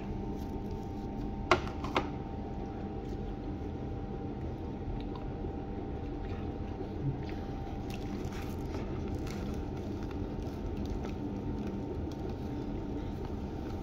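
Soft squishing of battered fish and chips being pulled apart and eaten, over a steady hum; two sharp clicks about a second and a half in, half a second apart.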